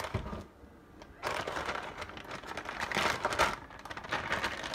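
A short knock, then a run of crinkly, crushing noises as cotija cheese and its wrapping are handled, loudest about three seconds in.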